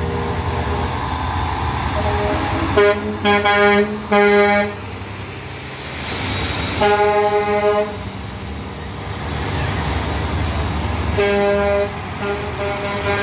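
Semi-trailer trucks' diesel engines rumbling past while their air horns sound at a steady pitch: three short blasts about three seconds in, one longer blast a few seconds later, and another blast near the end followed by a few quick toots.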